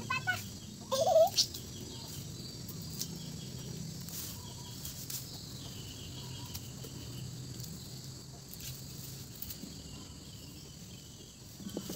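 Birds calling in the background over a steady low hum, with one short, loud call about a second in. Light clicks come now and then as lemongrass stalks are trimmed with a knife.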